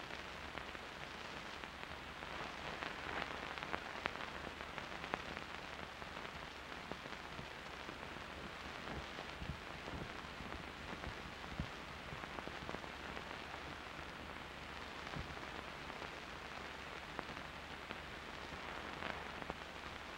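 Hiss and crackle of an old optical film soundtrack, with scattered faint clicks and a low steady hum; no live sound of the work on the runway.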